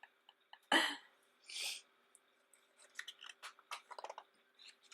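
Paper being handled as the pages of a large, heavy photobook are turned: a sharp swish about a second in, a hiss of sliding paper soon after, then a run of small crackles and ticks.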